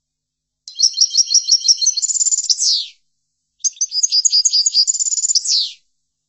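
European goldfinch singing two phrases of about two seconds each: quick twittering notes running into a fast trill, each phrase ending in a falling sweep.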